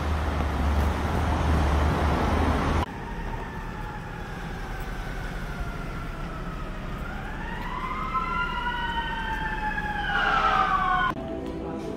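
Loud street and traffic noise for about the first three seconds, then an emergency vehicle's siren wailing, its pitch sliding slowly up and down, cut off abruptly near the end.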